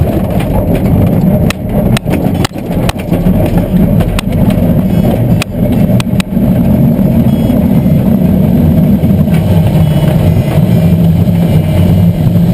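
Takeoff roll of a Schweizer 1-34 glider on aerotow over grass: a loud, steady engine-and-wind rumble from the tow plane pulling ahead, with the glider's wheel knocking and rattling over the bumpy ground. The knocks stop about six seconds in, leaving the steady hum.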